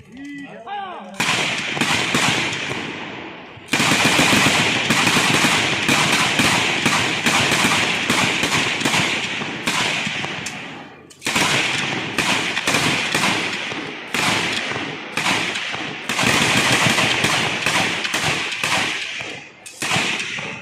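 Rapid gunfire from firearms at firing practice: many shots in quick succession and overlapping, each with an echoing tail, in long runs that break off briefly several times. A voice is heard briefly at the very start.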